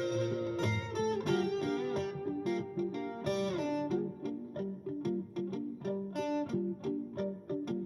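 Guitar music: a steady run of picked guitar notes with chords ringing underneath.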